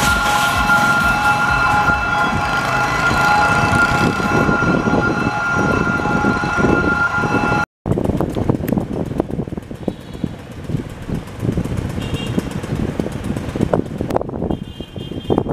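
A level-crossing warning alarm sounds steadily over passing motorbike traffic. After a sudden cut, the low rumble of an approaching diesel locomotive takes over, with brief high tones near the end.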